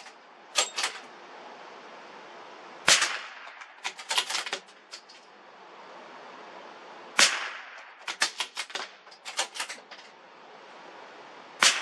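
.22 LR rifle shots: three sharp cracks about four seconds apart, each trailing off in a short echo and followed by a run of lighter clicks and pops.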